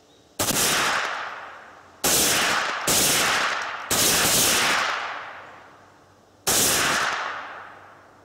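Five gunshots, three of them in quick succession in the middle, each echoing and fading over a second or two. None of them sets off the copper-oxide and aluminum exploding targets they are fired at: there is no blast among the shots.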